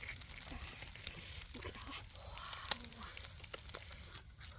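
Irregular rustling and crackling with scattered sharp clicks, one click standing out louder near the middle; it dies down shortly before the end.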